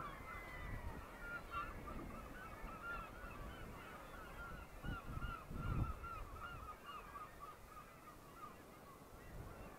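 Many seabirds, gulls of a cliff colony, calling over one another in a constant stream of short, rising-and-falling cries. A few low thumps come about five and six seconds in.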